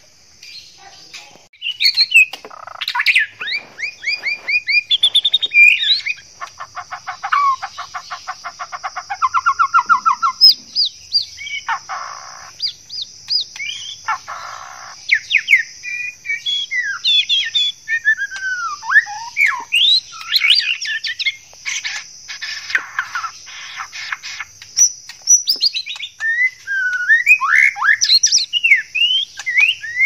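White-rumped shama (murai batu) singing a varied run of rich whistled phrases, sweeping notes and fast rattling trills: the male's song when in breeding condition and courting a female.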